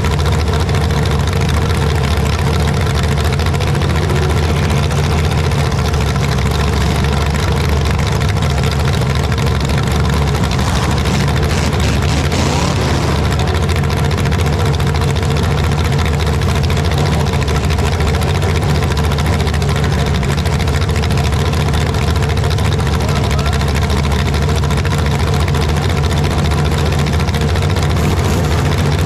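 An engine running steadily at a constant speed, a loud low hum that holds the same pitch throughout.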